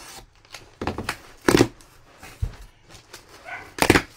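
Cardboard shipping box being opened by hand: a few short, sharp tearing and scraping noises, the loudest about a second and a half in and again near the end, with rustling of packing in between.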